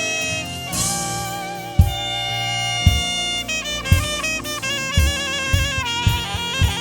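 A saxophone plays a slow worship melody with vibrato: a long held note, then a run of quicker stepping notes. Sustained backing chords and low drum hits sit under it, and the drum hits come more often near the end.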